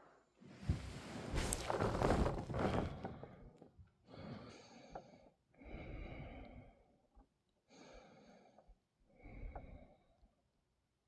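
A sleeping person breathing heavily through the nose and mouth. First comes a loud, noisy rush lasting about three seconds, then four slower breaths at an even pace, on the edge of snoring.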